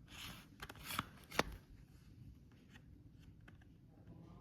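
Hands handling and rummaging among old radios in a box: a few sharp clicks and light rustles in the first second and a half.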